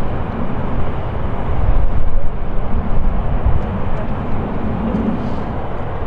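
Jet airliner engine noise at an airport: a loud, steady rumble that swells about two seconds in and eases off again.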